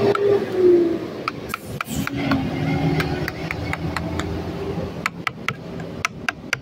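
A steel wood chisel being struck on its handle and driven into a carved wooden sign: rapid, evenly spaced sharp knocks, several a second, as chips are cut away. A low steady hum runs underneath.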